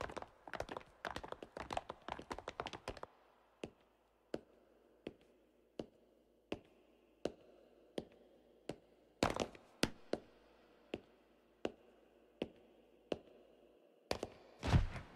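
Footsteps as sharp taps: a quick flurry of many overlapping steps at first, then slow, measured single steps climbing stairs, about one every 0.7 s. A few louder knocks come about nine seconds in and again near the end.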